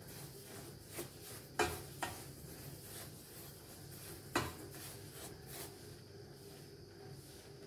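Wooden spatula stirring semolina as it dry-roasts in a steel pan: a soft, steady scraping of the spatula through the grains, with a few sharp knocks of wood on the pan, the loudest about one and a half and four seconds in.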